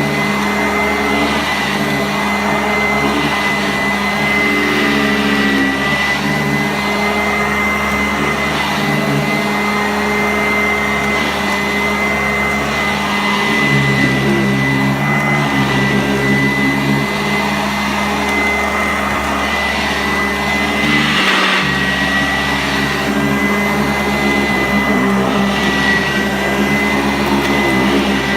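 Sanitaire SC684 upright vacuum cleaner running steadily while vacuuming carpet: a constant high whine over the motor's hum, with small shifts as it is pushed back and forth.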